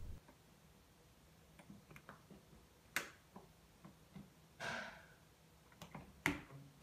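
A few sharp clicks and a brief rustle in a quiet small room as a hand takes hold of a round doorknob, with a pair of clicks near the end.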